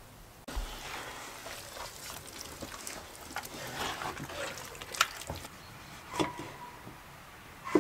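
Hands squeezing and mixing raw meat pieces in a white sauce in a bowl: a wet, crackly squishing that starts abruptly about half a second in. This is followed by a few sharp knocks on a wooden cutting board, the loudest near the end.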